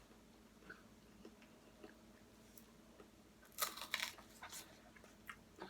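Close-up eating sounds: soft chewing with small mouth clicks, and a brief cluster of crisp crunching about three and a half seconds in.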